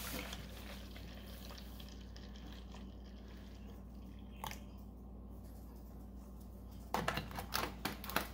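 Milk poured into a shaker bottle, the stream fading to drips over the first couple of seconds. A few light clicks and knocks follow about seven seconds in.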